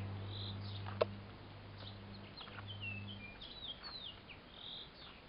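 Small songbirds chirping and twittering, with many short high calls and quick falling notes. Under them runs a low steady hum that stops about three seconds in, and there is a single sharp click about a second in.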